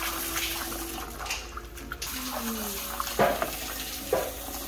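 Kitchen tap running into a bowl of dried red dates as they are rinsed and stirred by hand, a steady splashing hiss. Two short knocks come about three and four seconds in.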